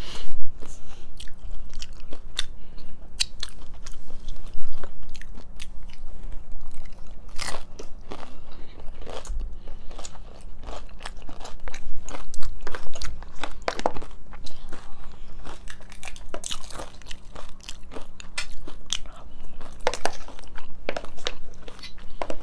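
Two people eating tacos: repeated crunchy bites and wet chewing, with many short, sharp crunches throughout.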